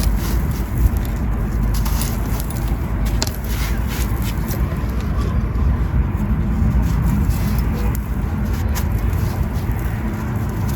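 Red gritty sand-cement crumbling and crunching close to the microphone: a dense run of crunches and crackles over a steady low rumble.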